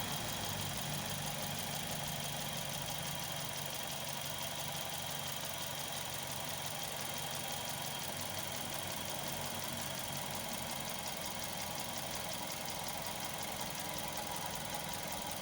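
Toyota Vios 2NZ-FE four-cylinder engine idling steadily.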